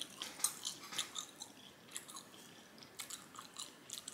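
A person chewing food with wet mouth smacking: a string of short, irregular clicks, several a second.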